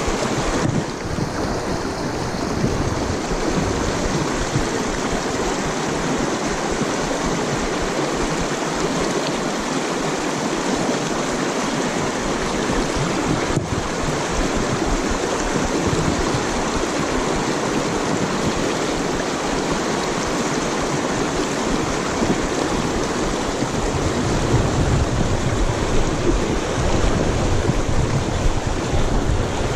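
Shallow, rocky river water rushing over stones in a riffle: a steady wash with no let-up. A deeper rumble joins in the last few seconds.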